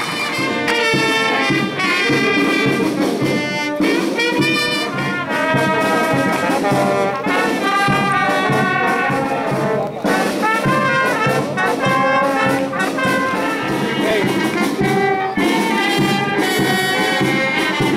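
Brass band playing music, trumpets and trombones to the fore. The music breaks off and picks up again abruptly a few times.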